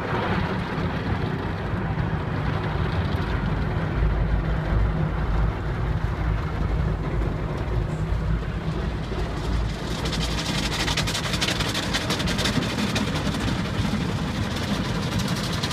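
Automatic car wash running, heard from inside the car: a steady low rumble of the machinery with water and foam spraying against the body and glass. From about 10 s in a louder hissing, crackling spray joins in as the jets hit the car.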